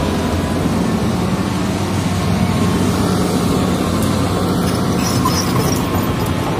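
Hitachi hydraulic excavator's diesel engine running steadily close by, a deep even drone, while the machine's upper structure swings round.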